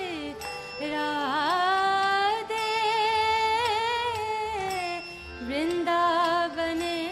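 A woman singing a slow devotional kirtan melody without speech, holding long notes with wavering ornaments and slides between pitches, over a steady harmonium drone.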